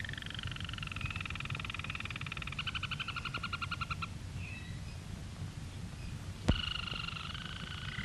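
Canaries singing: steady whistled notes that break into a fast trill a few seconds in, then stop. After a short pause there is a sharp click, and the singing starts again, over a steady low rumble and hiss.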